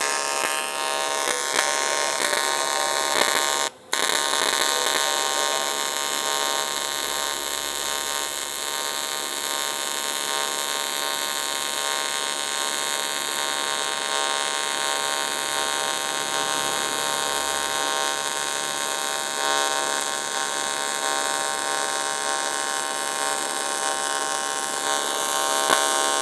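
AC TIG welding arc on 1 mm aluminium sheet at about 70 A, buzzing steadily. The arc drops out for a moment about four seconds in, then strikes again.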